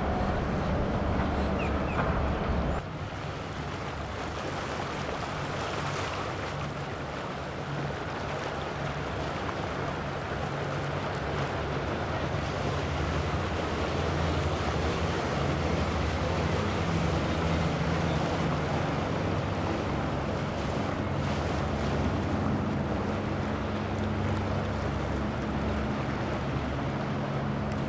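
Boat engines running under way, with water rushing along the hull. For the first few seconds a flybridge motor yacht's engines give a deep rumble. Then the sound changes abruptly to the steady hum of a center-console fishing boat's triple Yamaha outboards running at speed.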